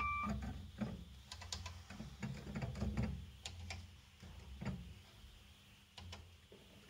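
Irregular light clicks and taps, like keystrokes, over a low steady hum. A short beep sounds right at the start.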